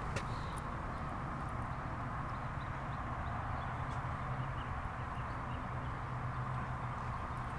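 1987 Honda Hurricane CBR600F's inline-four engine idling steadily, with a few faint ticks over it.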